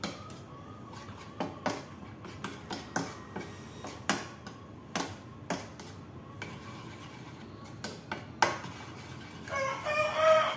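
A utensil clinking against a ceramic bowl in irregular taps while eggs are beaten. Near the end a rooster crows.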